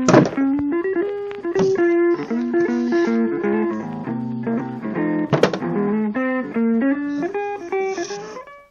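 Background music: a guitar melody with plucked notes and a few sharp percussive hits, fading out at the end.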